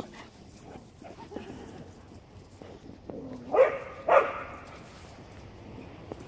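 A dog barks twice, about half a second apart, a little past the middle.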